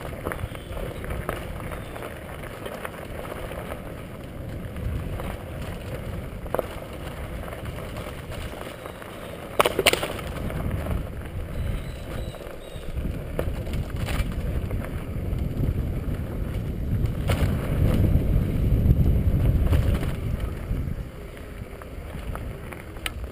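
Bicycle tyres rolling over a loose gravel track with wind buffeting the microphone, the bike rattling and knocking over bumps, with a sharp knock about ten seconds in. The rumble grows louder for a few seconds near the end.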